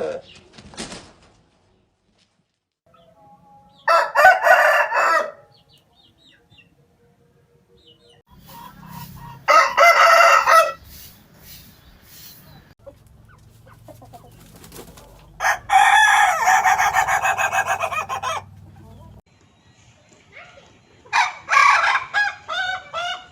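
Ayam ketawa roosters crowing four times, about five seconds apart, each crow one to three seconds long. The longest, near the middle, breaks into a fast stuttering run of notes, the laughing crow the breed is named for.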